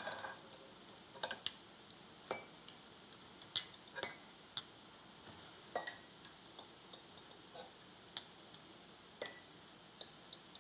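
Light, irregular clinks of a spoon and eggs against ceramic mugs as hard-boiled eggs are lowered into cups of egg dye, about a dozen small taps.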